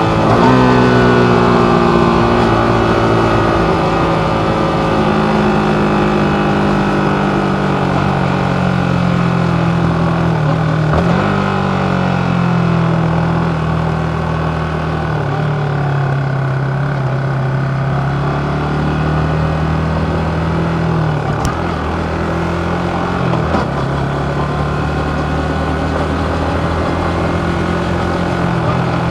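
Yamaha MT-15's single-cylinder engine running under the rider during a ride. Its note falls sharply near the start, then rises and falls with road speed, dipping briefly about a third of the way through and again near the end.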